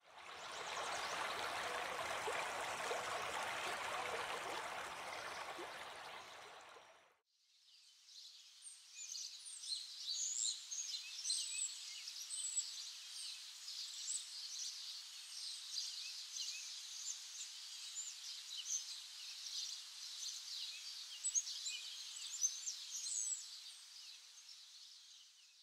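Steady rushing of running water that fades out about seven seconds in; then many birds chirp and twitter over a steady high hiss.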